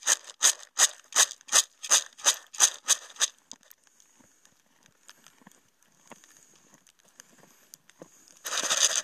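Footsteps crunching in snow at a steady walking pace, about two and a half steps a second, stopping about three seconds in. Near the end a horse close by gives one short, loud snort.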